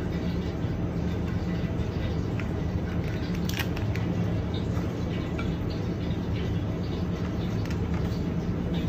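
Small clicks and cracks of cooked lobster tail shells being pried apart and emptied by hand, over a steady low hum.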